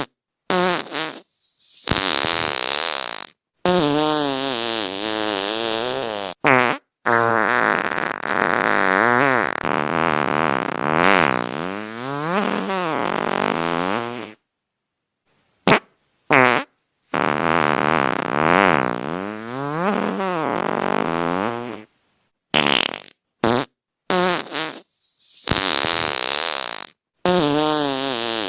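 A string of fart sounds, one after another: some short, some several seconds long, with the pitch wavering up and down, and each one cut off abruptly into silence before the next.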